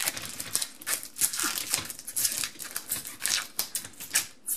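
Packing material being pulled off and crumpled by hand: a run of short, irregular crinkles.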